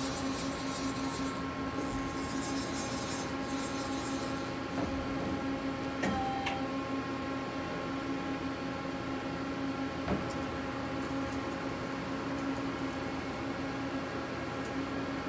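Mori Seiki ZL-35 CNC lathe powered up and idling with a steady hum made of several constant pitches. A couple of light clicks come about six and ten seconds in.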